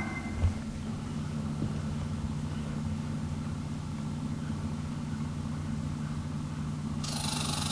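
A motor engine running steadily with a low hum, with a single knock about half a second in and a hiss coming in near the end.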